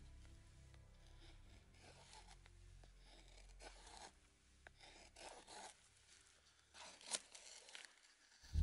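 Knife blade shaving thin curls off a wooden stick to make a feather stick: faint scraping strokes every second or so, one sharper stroke about seven seconds in.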